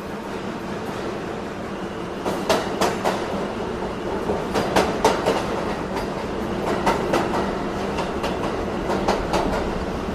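Subway train running on the rails: a steady rumble, and from about two seconds in, the wheels clacking over rail joints in quick pairs.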